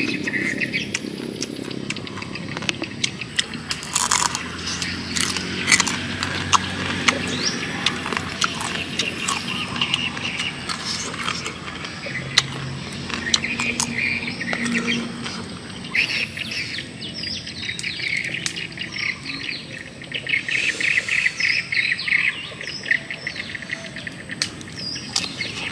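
Close-up eating sounds: a man crunching and chewing crispy fried crabs and raw cucumber, with many sharp crunches that come in quick runs. Birds chirp in the background.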